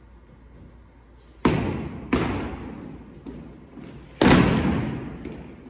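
Drill team's synchronized stomps on a wooden gym floor, each one ringing out in a long hall echo: one about a second and a half in, a lighter one just after, and the loudest about four seconds in.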